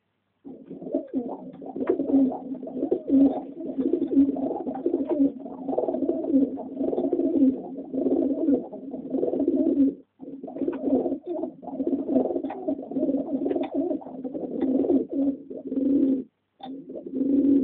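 Several homing pigeons cooing continuously, their calls overlapping, with a brief break about ten seconds in and another near the end.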